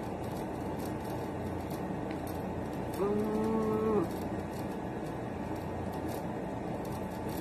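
A woman's closed-mouth "mmm" hum of enjoyment while chewing food, held at one pitch for about a second, around three seconds in, over a steady background hiss.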